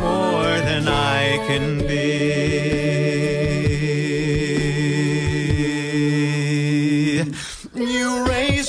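A cappella voices singing in harmony, settling into a long held chord that drops away for a moment near the end before the singing resumes.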